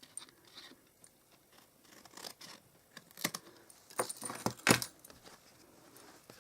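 Card edges being trimmed: a handful of separate sharp clicks and scrapes from the cutting tool and the card, the loudest between about three and five seconds in.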